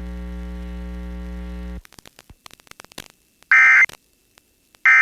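Emergency Alert System broadcast: a steady electrical hum on the relayed test audio cuts off about two seconds in, a few clicks follow, then two short, loud, buzzy bursts of the EAS end-of-message data tone, about a second and a half apart, closing the Required Monthly Test.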